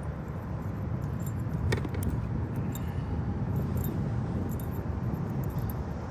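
Steady low rumble of wind on the microphone, with light scattered clicking and jingling and one sharper click about a second and a half in.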